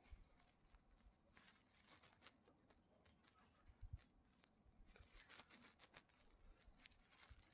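Near silence: faint room tone with a few scattered small clicks and light rustles.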